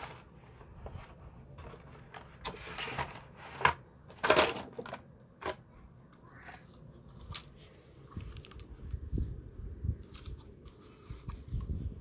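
Crinkling and rustling of carded toy blister packs being handled, with scattered clicks. Two louder crinkles come about three seconds and four and a half seconds in.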